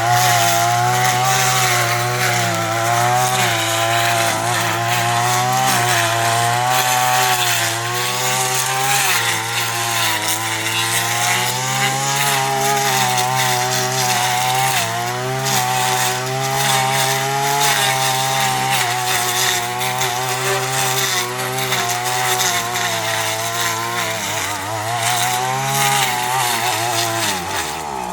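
Small petrol engine of a grass-cutting machine running hard and continuously, its pitch wavering up and down as the load changes, then dropping in the last few seconds.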